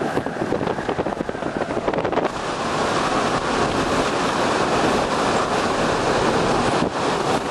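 Hurricane-force wind and driving rain: a dense, steady rush of noise with wind buffeting the microphone. It grows steadier and a little louder about two seconds in.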